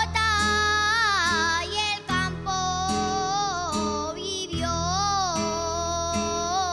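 A young girl singing an Aragonese jota, long held notes with wavering, ornamented pitch in phrases broken by short breaths, over a rondalla of guitars and other plucked strings.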